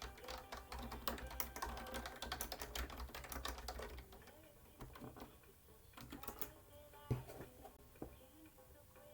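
Typing on a computer keyboard: a fast run of key clicks for about four seconds, then scattered keystrokes, with one louder knock about seven seconds in.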